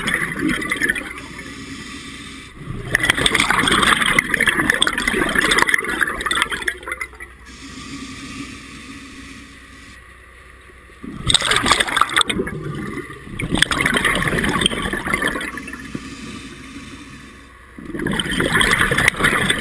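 Scuba regulator breathing underwater: long, gurgling bursts of exhaled bubbles a few seconds each, with quieter gaps for the inhalations between them.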